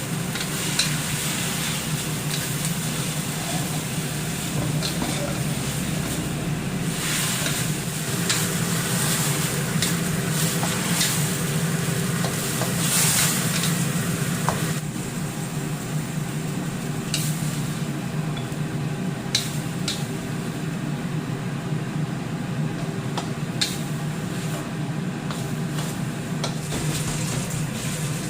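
Food sizzling in a hot pan or wok while being stirred and tossed with a spatula, with occasional sharp clicks of the utensil against the pan over a steady low hum.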